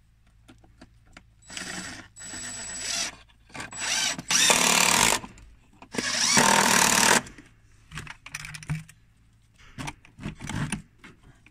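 DeWalt cordless impact driver running in several bursts as it drives a screw hook into a wooden board; the two loudest bursts come about four and six seconds in. Near the end, a few light metal clicks as a bucket's wire handle is hooked on.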